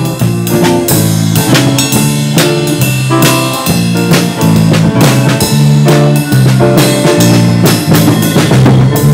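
Live band playing: a drum kit with regular snare and bass-drum hits over a low line of held notes that steps up and down in pitch.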